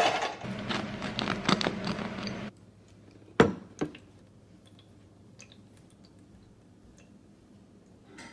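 Metal loaf pan set down on a wire cooling rack with a sharp clank, then a couple of seconds of rattling and knocking as it is handled. The sound then drops to a quiet room with two knocks about half a second apart and a few faint ticks.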